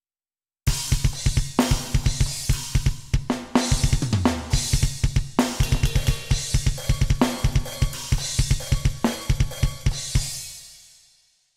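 Custom sampled metal drum sounds played on an Alesis Nitro Mesh electronic drum kit: rapid kick drum strokes under snare and crash cymbal accents. The playing starts out of silence under a second in and stops near the end, leaving a cymbal ringing out.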